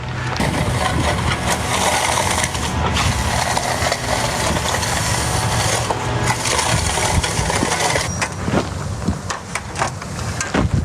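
An engine running steadily at low revs under a loud rushing noise that stops about eight seconds in. After it stops come several scattered clicks and knocks.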